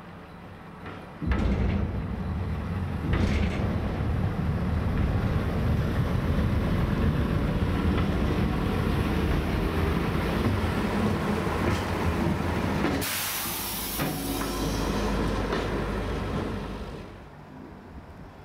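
A 1958 Waggon und Maschinenbau four-wheel diesel railbus running past close by, its engine and wheels giving a loud steady low rumble that comes in suddenly about a second in and fades away near the end. A brief loud hiss about two-thirds of the way through.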